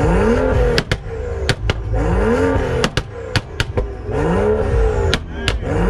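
BMW 2 Series coupe's engine revved three times in quick blips, the note rising and falling each time, with sharp exhaust pops and cracks as the revs drop off.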